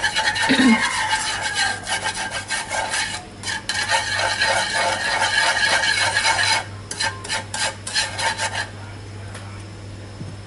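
A utensil scraping and stirring sugar granules around a nonstick frying pan in fast rasping strokes, the sugar being melted in a little oil to make caramel sauce. The scraping thins out to a few separate strokes and stops a couple of seconds before the end.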